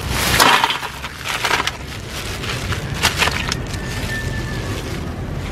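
A batch of crabs being handled: three short bursts of rustling and scraping, with a gap after each.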